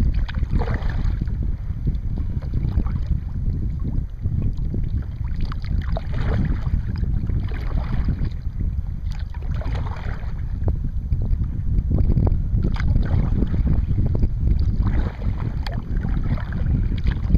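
Wind rumbling on the microphone, with the swish and splash of kayak paddle strokes in the water every second or two.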